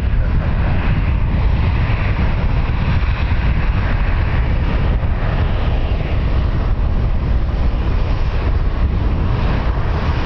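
Wind buffeting the microphone: a loud, steady rushing rumble, strongest in the low end.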